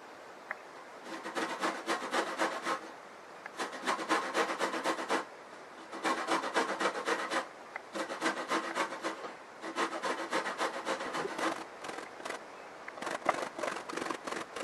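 A whole lemon rubbed on a metal box grater to take off its zest. Runs of quick scraping strokes start about a second in, each lasting a second or two, with short pauses between.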